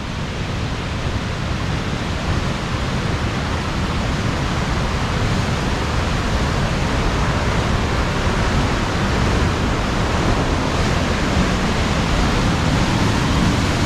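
Hermon Stream rushing loudly through a narrow gorge, a steady raging roar of water swollen by recent rain, growing gradually louder.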